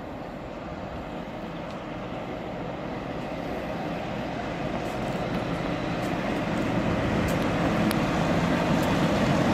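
Class 47 diesel-electric locomotive's Sulzer twelve-cylinder engine running as it approaches hauling a passenger train, the engine and wheel rumble growing steadily louder. A few light clicks come near the end.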